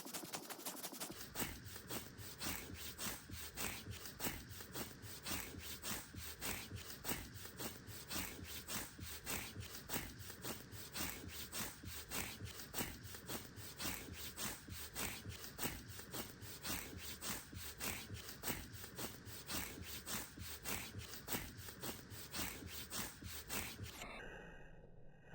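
Fingernails scratching the skin of an arm with severe eczema in quick, regular back-and-forth strokes, a few a second: rough, dry scratching at itchy skin.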